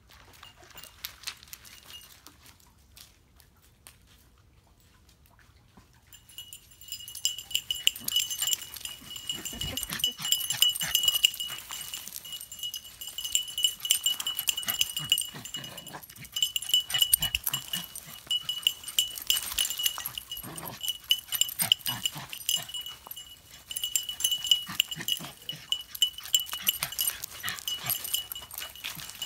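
A small bell on a Shiba Inu's harness jingling as the dog trots, a steady ringing tone over quick rattling strikes. It is faint at first and becomes loud and continuous from about six seconds in.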